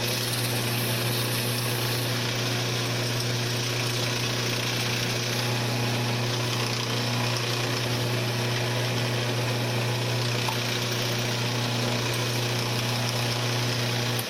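Wood lathe running steadily with a low motor hum, while sandpaper held against the spinning wooden workpiece makes a continuous hiss.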